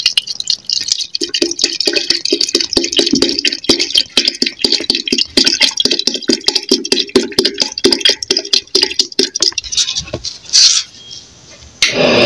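Cold water glugging out of a plastic bottle and splashing into a clay pot of melted cream for churning butter, in a fast uneven gurgle that stops about ten seconds in.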